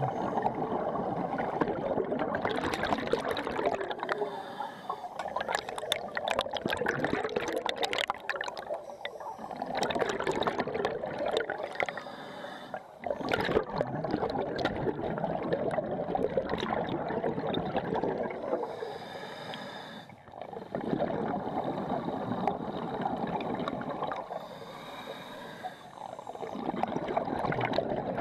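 Scuba regulator breathing underwater: long stretches of rushing, gurgling exhaust bubbles, broken by short quieter inhalations about every five seconds.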